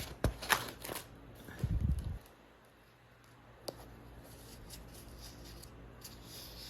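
Sheets of paper being handled as old drawings are leafed through: a few short rustles and clicks, then a low thump at about two seconds, after which only quiet room tone remains.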